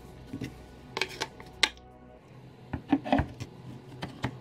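3D-printed plastic figure parts clicking and knocking against each other as the legs are set onto the printed base: a string of short, sharp taps and clicks.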